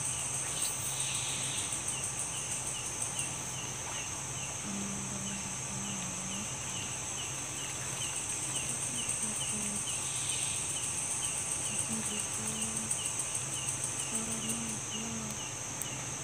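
Night-time insect chorus: crickets keep up a steady high-pitched drone, with another insect chirping about twice a second, over a faint steady low hum.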